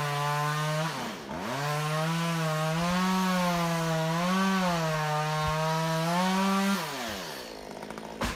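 Two-stroke chainsaw running at high revs cutting wood. Its pitch dips sharply about a second in as it bogs into the cut, then wavers with the load, and slides down as it winds off near the end.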